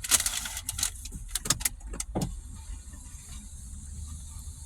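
Several sharp clicks and knocks inside a car's cabin, the loudest right at the start and the rest within the first couple of seconds, over a steady low rumble.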